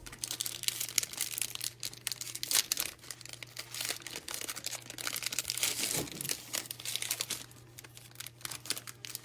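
Wrapper of a pack of football trading cards being torn open and crinkled by hand, an irregular crackling that goes on throughout.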